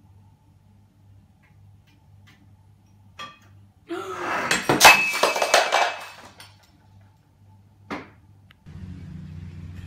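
A ceramic pet food bowl crashes onto a hard floor and breaks, with dry kibble scattering in a clatter of many small impacts lasting about two seconds. A single sharp knock comes just before it and another about two seconds after.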